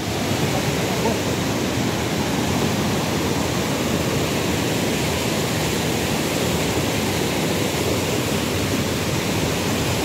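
Steady rush of a fast river tumbling over rocky rapids, running high and rough with white water.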